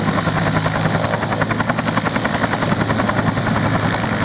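Helicopter sound: rotor blades chopping rapidly and evenly over a steady low engine hum.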